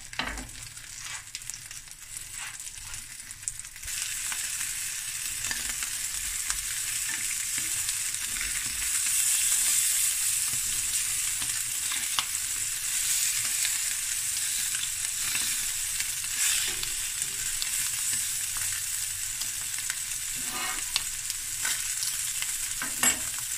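Chicken drumsticks and thighs sizzling as they brown in their own rendered fat in a stainless steel pan, with no oil added. A fork clinks and scrapes against the pan as the pieces are turned. The sizzle grows louder about four seconds in.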